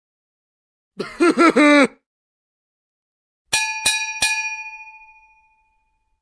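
A short voice-like sound effect of four quick syllables, then three quick bell-like dings about a third of a second apart that ring on and fade away over about two seconds.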